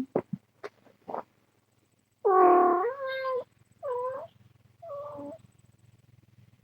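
A cat meowing four times in a row, the first call the loudest and longest, the others shorter and fainter. A few short clicks come just before.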